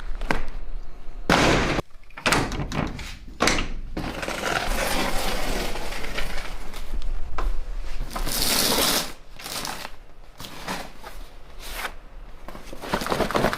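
A cardboard package being handled and opened: a series of knocks and rustling, with a sharp hissing burst about eight seconds in.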